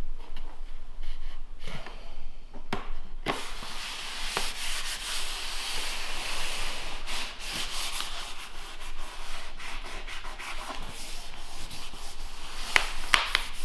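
Rubbing and scraping against flooring, with scattered sharp clicks that come more often near the end.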